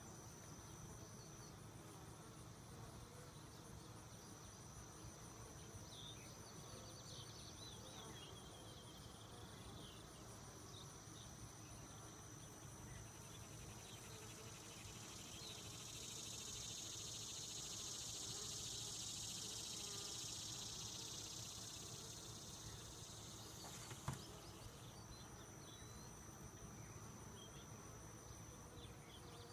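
Faint buzzing of honey bees around an opened hive, with crickets chirring steadily in the grass. A hiss swells in the middle, and a single sharp tap comes near the end.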